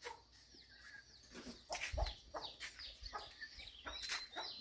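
Chickens clucking, a scatter of short, falling calls, with a dull knock about two seconds in.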